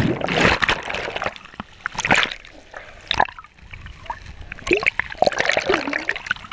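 Sea water splashing and gurgling around a camera that dips under the surface and comes back up, in irregular bursts of splash and bubbling.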